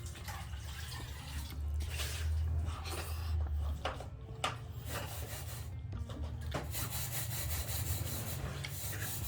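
Eating sounds: soft rubbing and scattered light clicks of food being handled and eaten, over a steady low hum.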